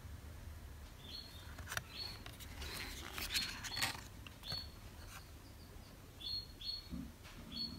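Thick oracle cards being handled: slid, rubbed together and set down on a woven cloth, with faint rustles and taps that cluster in the middle. A few short, high chirps sound now and then.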